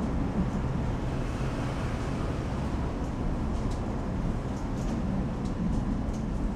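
Steady low rumbling noise, with a few faint scattered ticks.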